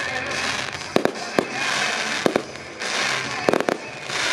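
Fireworks finale: shells bursting with sharp bangs, about seven in all, coming singly and in quick groups, the last three in fast succession around three and a half seconds in. Between the bangs there is a crackling hiss of glittering crackle effects.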